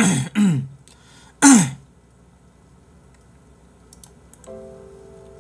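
A man's short wordless vocal sounds in the first two seconds, then a few faint clicks. About four and a half seconds in, soft background music with slow, bell-like held notes comes in.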